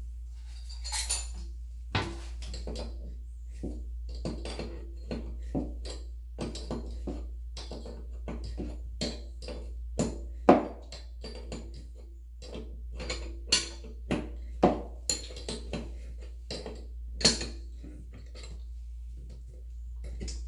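Adjustable wrench clinking and clanking against the metal fittings as a braided toilet supply line is connected and tightened at the shut-off valve: a string of irregular sharp metallic clicks, the loudest about ten seconds in.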